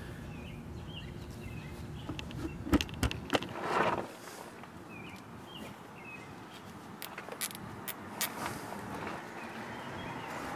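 Nylon zip tie being fed through and pulled tight around a truck's rear leaf spring: a few sharp clicks, a short rasp about four seconds in, then more clicks as the tie and caliper are handled.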